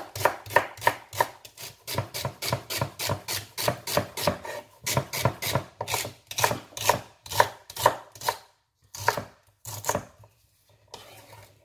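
Kitchen knife chopping celery stalks on a wooden chopping board in quick, even strokes, about four chops a second. Around two-thirds of the way through the chopping stops, and a few separate chops follow.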